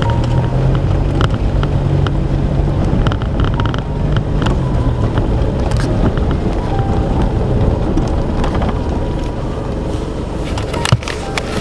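Vehicle on the move: a steady low engine and road hum with scattered knocks and rattles, and one sharp knock near the end.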